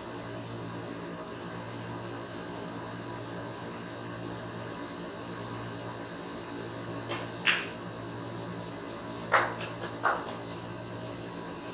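Snooker balls: a soft tap of the cue tip on the cue ball, then a sharp click of the cue ball striking the blue about seven and a half seconds in. About two seconds later comes a quick cluster of clacks and knocks as the balls hit the cushions and the blue drops into a pocket. A steady low hum runs underneath.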